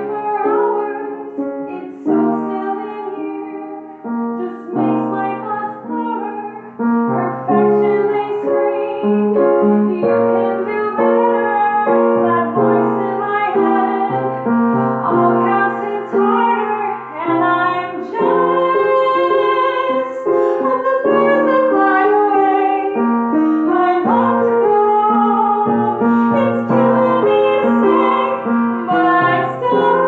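A woman singing while accompanying herself on an upright piano, with sustained chords under a slow vocal line. It gets louder about seven seconds in.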